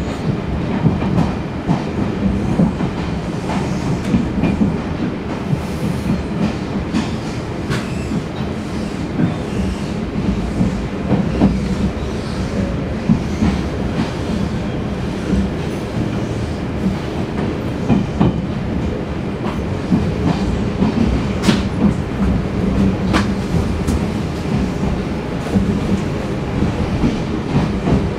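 Taiwan Railways Fu-Hsing passenger train heard from inside a coach: steady rumble of wheels running on the rails, with clickety-clack over rail joints and points and a few sharp clicks about three-quarters of the way through.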